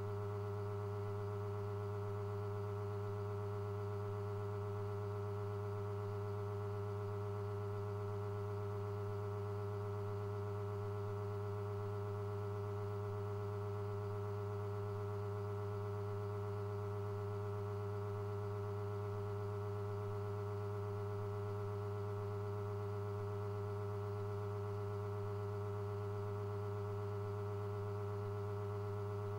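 Steady electrical hum made of several unchanging tones, a deep one strongest with higher ones above it, holding at one level throughout; no bird calls are heard.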